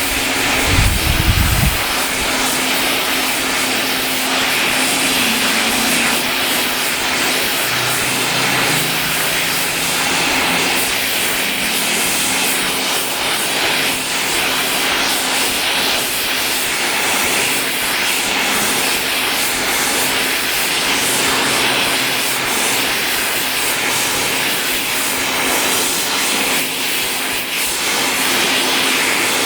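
Steady roar of a gas burner heating stainless steel stock for forging, running evenly throughout.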